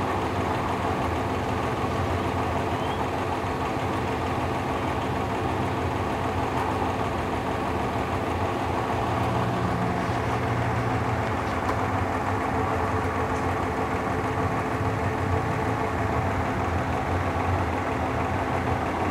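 A steady machine hum with several constant tones.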